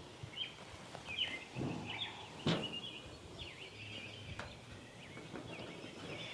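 Small birds chirping in quick, short calls, with a few light knocks from hands handling parts.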